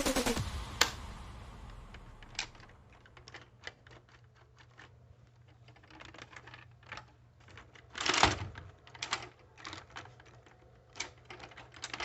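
Irregular, scattered plastic clicks and taps from handling the toy dart blaster, with one louder, longer noisy burst about eight seconds in.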